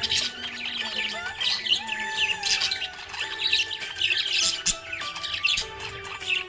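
Budgerigar chirping and twittering in quick bursts about once a second, over background music with long held notes.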